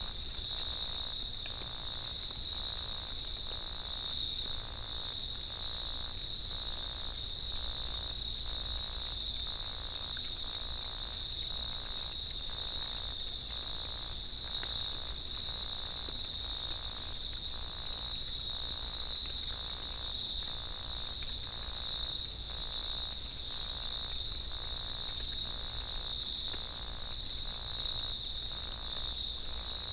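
Steady chorus of crickets trilling on two high-pitched bands, with a louder short call about every three seconds.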